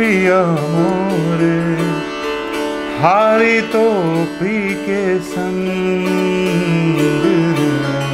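A man singing a slow, ornamented Hindustani classical melody, his voice sliding and curling between notes, over a sitar. A new phrase starts about three seconds in.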